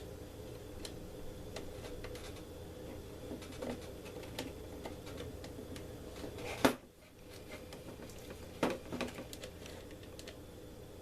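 Small clicks and taps of metal lock nuts and screws being handled and fitted, the sharpest click about two-thirds of the way in, over a steady low background hum.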